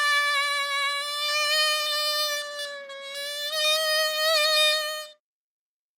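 A long held, buzzy high note from a small instrument, used as an imitation of a mosquito's whine; the pitch sags a little in the middle, rises again and the note stops about five seconds in.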